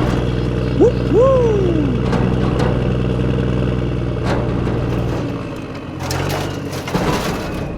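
A small engine runs steadily and stops, or drops away sharply, about five seconds in. Two short rising-and-falling calls come near the start, and a few clicks and knocks follow later.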